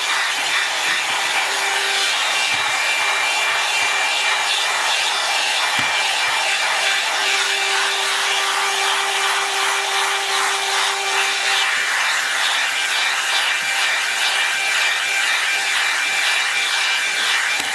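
Hair dryer with a brush attachment running steadily: a constant rush of air over a faint motor hum, with the brush rubbing through in strokes.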